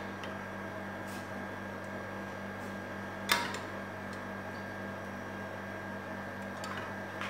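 Steady low electrical hum with a faint high whine over it, broken by one sharp click about three seconds in and a couple of fainter ticks.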